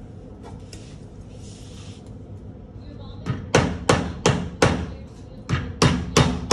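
Hammer tapping on the wooden jamb of a pre-hung door frame to knock the frame over in its opening while setting it plumb. Sharp strikes at about three a second start about halfway in, in two quick runs with a short pause between.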